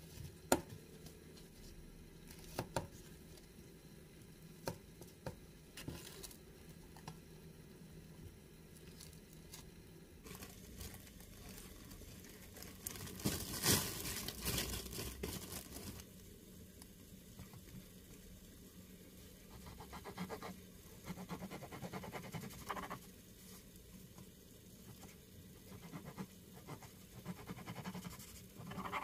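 Hands working seasoned ground beef in a bowl and shaping it into patties: soft squishing and patting with a few small clicks, and a louder stretch of rustling and scraping about halfway through.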